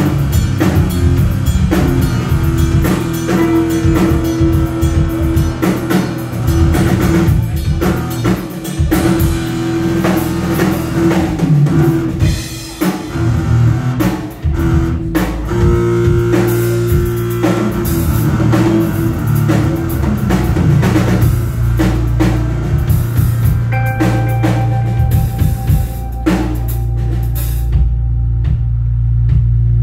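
Instrumental rock played live by a trio: electric guitar, electric bass and a drum kit, loud and driving. About three-quarters of the way through the drums drop away, leaving held guitar and bass notes ringing.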